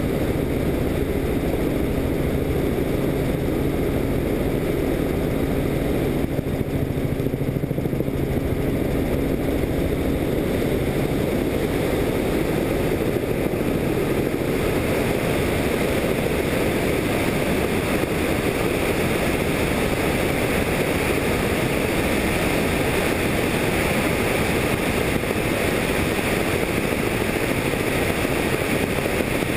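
Helicopter in flight heard from on board: steady engine and rotor noise, with a low hum that fades out about ten seconds in.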